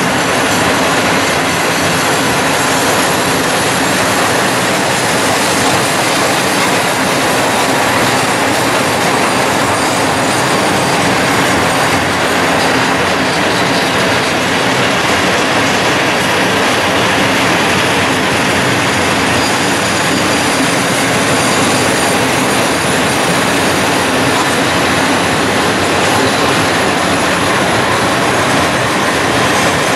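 Freight wagons loaded with steel coils rolling past on the track: a steady, continuous noise of wheels on rail as the train goes by.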